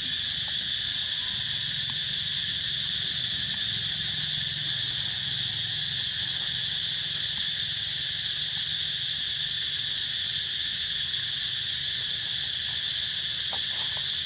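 Dense, steady chorus of insects: a high shrill drone that holds at an even level without a break.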